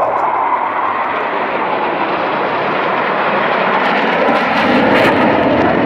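Jet engine noise from a formation of KAI T-50B trainer jets flying overhead: a steady rush of noise that grows a little louder about two thirds of the way through.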